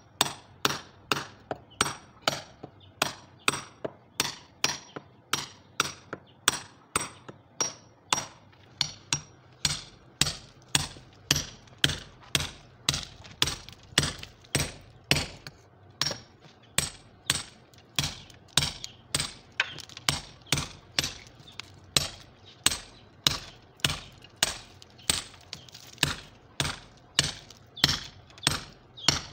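Hammer driving a steel chisel into a plastered masonry wall, chipping out a hole by hand: a steady run of sharp blows, about two a second.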